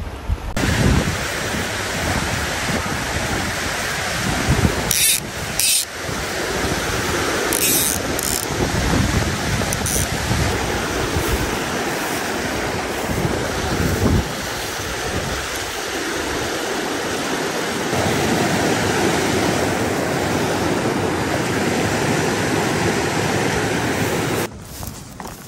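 Small creek's water rushing steadily over shallow riffles, with wind rumbling on the microphone through the first half. The rush drops away abruptly near the end.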